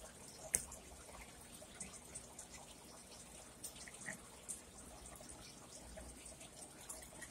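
Faint wet squishing and scattered small clicks of a fork digging into a gravy-smothered hamburger steak on a brioche bun, with one sharper click about half a second in.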